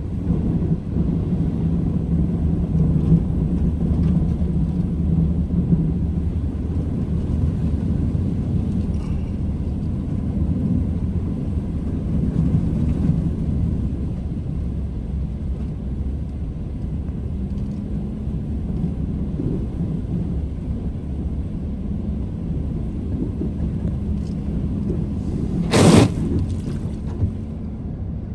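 Vehicle engine running with a steady low rumble. A short, loud burst of noise comes near the end.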